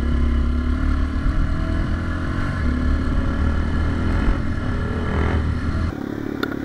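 Single-cylinder four-stroke dirt bike engine running under way on a trail, its pitch shifting a little with the throttle, over a heavy low rumble of wind. The low rumble drops off about six seconds in.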